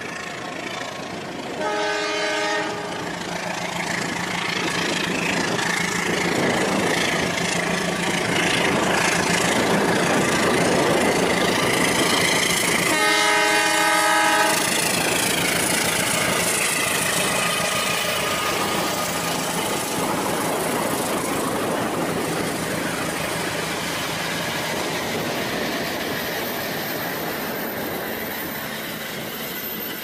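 Battery-powered toy train running on its plastic track with a steady motor hum and wheel clatter, sounding its electronic horn twice: briefly near the start and again for longer about halfway through. A steady hiss of rain lies under it all.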